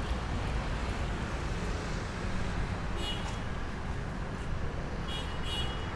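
Steady low rumble and hiss of background noise, with a few brief high chirps about three seconds in and again near the end.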